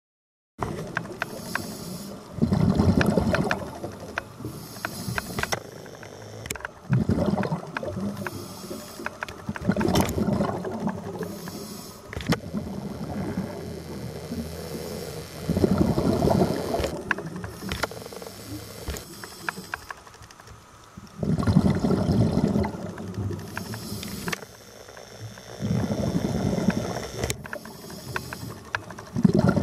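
Underwater scuba breathing through a regulator: a loud rush of exhaled bubbles comes about every four to five seconds, with a fainter hiss of inhalation between.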